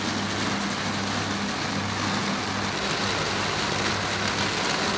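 Heavy rain falling on a sailing boat's deck and cabin windows, heard from inside the cabin as a steady, even hiss. A steady low hum runs underneath.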